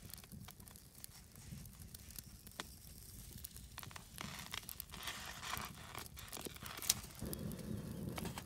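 Knife shaving thin curls off a frozen whole fish: a run of dry scrapes and crackles, with a sharp click about seven seconds in.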